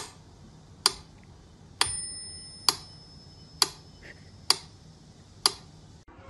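Seven sharp ticks at an even pace, a little more than one a second, like a clock ticking. A thin high ringing tone joins about two seconds in and fades over the next few seconds.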